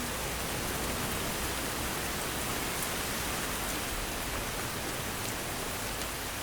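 Heavy rain pouring steadily, a dense even hiss with faint pattering ticks.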